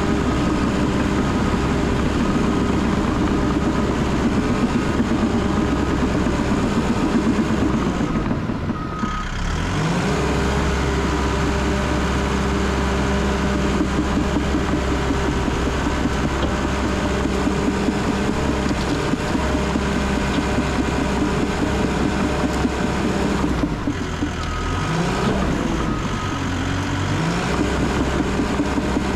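Cat D3 crawler dozer's diesel engine running under load while it pushes brush and logs, heard from the operator's seat. The steady engine note dips twice, about a third of the way in and again near the end, then climbs back up.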